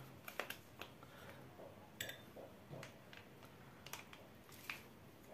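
Faint, scattered small clicks and taps from squeezing a soft plastic mayonnaise pouch onto a metal spoon over a glass bowl, with a few more about two, four and near five seconds in; otherwise quiet room tone.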